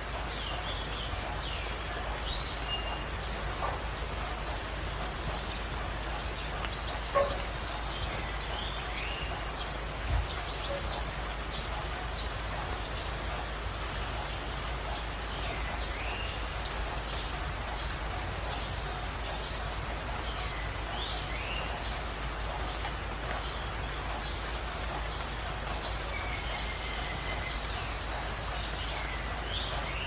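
Birds singing over a steady rush of flowing water: a short, high trill repeats about every three seconds, with scattered chirps and whistles in between.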